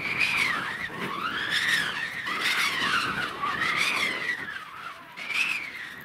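A child's high-pitched squeals while riding a snow tube downhill: a string of short rising-and-falling cries, about five in a row, easing off near the end.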